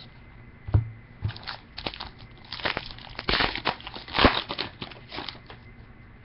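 Crinkling and crackling of a trading card pack's wrapper as it is handled and opened: a run of short crackles, loudest about four seconds in.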